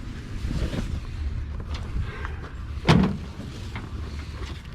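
Items being handled while a box is unpacked, with one sharp knock about three seconds in as something is set down or struck, over a steady low rumble.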